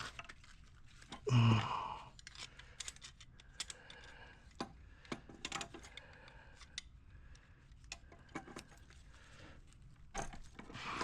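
Light metallic clicks and rattles of the gas meter's shutoff valve being worked by hand, with a short low sound about a second and a half in.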